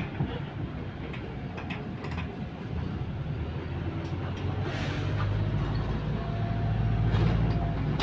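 Transit bus heard from inside, its engine and drivetrain running with a low hum and light rattles. About halfway through the hum grows louder and a faint steady whine comes in.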